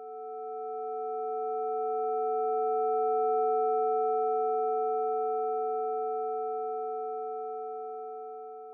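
Computer-synthesized chord of about five steady sine tones, the loudest a mid-range tone near A440, from a Sonic Pi spectral-profile sonification of red wines' quality ratings. It swells in to a peak about a third of the way through, then slowly fades out.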